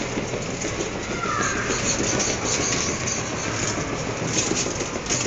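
Steady rushing, rubbing noise of a rider sliding down a long enclosed tube slide, the phone carried along with them.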